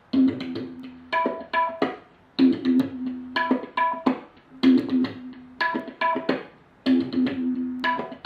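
Instrumental music played through a portable Bluetooth speaker, with a short percussive phrase of pitched drum-like strikes and plucked notes repeating about once a second.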